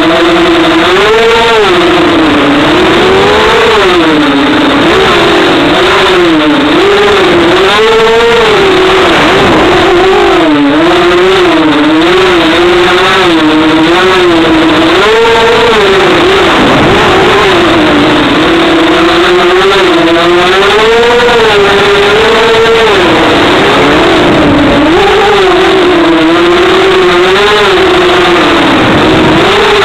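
FPV racing quadcopter's brushless motors whining, the pitch rising and falling constantly as the throttle is worked through the turns of a race course.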